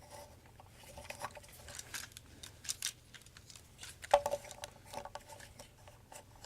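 Plastic parts of a Titans Return Sixshot action figure clicking and rattling as the figure is handled and its joints moved, with a sharp click about four seconds in.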